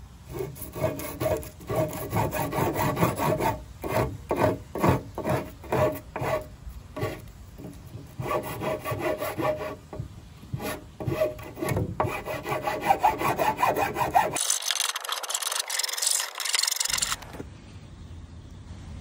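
Flat metal hand file rasping back and forth across the splintered cut edge of a softwood board, smoothing it, in a steady rhythm of about two strokes a second. Near the end the strokes turn to a thinner, hissier scrape for a few seconds before stopping.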